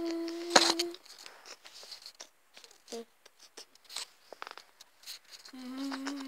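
A voice holding a long steady note that cuts off about a second in, followed by scattered light clicks and handling noise. Near the end a second, slightly lower and wavering held note begins.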